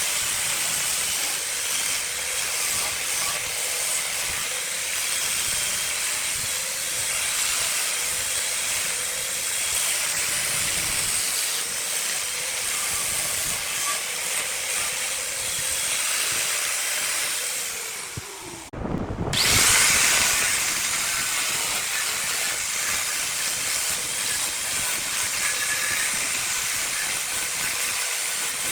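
Steady hissing of jackfruit wood being worked against on a spinning wood lathe. About 19 seconds in it breaks off for an instant, then comes back with a short louder surge before settling into the same steady hiss.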